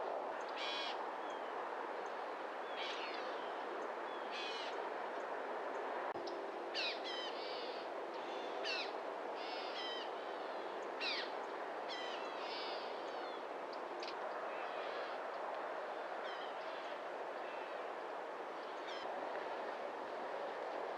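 Wild birds calling over and over, short high chirps and wavering notes coming every second or so, over a steady low rushing background.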